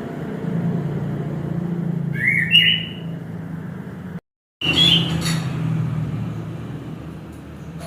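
Orange-headed thrush singing in two short phrases, about two and five seconds in, over a steady low rumble. The sound drops out completely for a moment just after four seconds.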